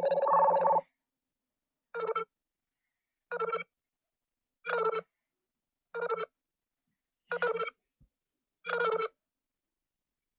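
Nothing Phone (1) Glyph ringtones playing. One stops under a second in, then another sounds as six short electronic blips, evenly spaced about every second and a half.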